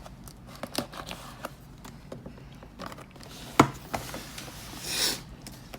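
Handling noises: scattered light clicks and taps, one sharp knock about three and a half seconds in, and a short rustle near the end.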